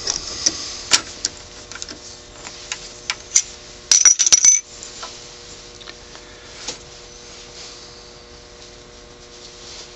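Metallic clicks and clatter from handling a wood lathe's metal scroll chuck while a small maple blank is removed, turned around and re-gripped in its jaws. A brief burst of rattling clicks with a faint ring about four seconds in is the loudest part. Sparse faint clicks follow over a faint steady hum.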